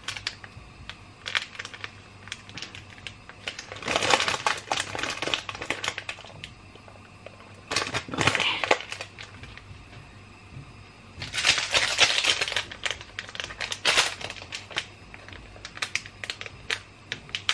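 Small plastic seasoning sachets from an instant ramen pack crinkling and rustling as they are handled and torn open, in several bursts about four, eight and twelve seconds in, with light clicks and rustles between.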